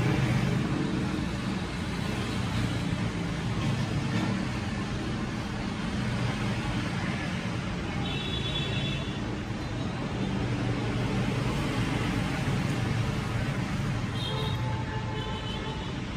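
Steady road traffic noise, a continuous rumble and hiss of passing vehicles, with a few brief faint high tones about halfway through and near the end.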